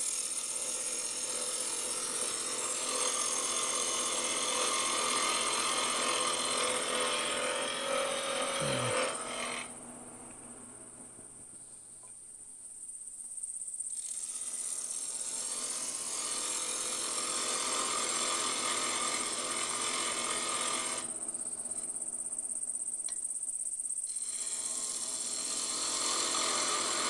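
Carbide turning tool cutting a Bois d'Arc (Osage orange) duck call blank spinning on a wood lathe, a steady scraping hiss. The cutting stops twice for a few seconds, about ten seconds in and again a little past twenty, leaving only a steady high whine.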